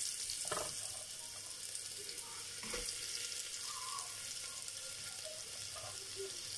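Chopped onions sizzling in hot coconut oil in an aluminium pressure cooker, a steady frying hiss with a couple of faint clicks.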